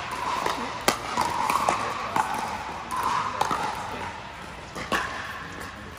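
Pickleball rally: paddles popping against a plastic ball, about five sharp, irregularly spaced hits. Background voices murmur in a large indoor hall.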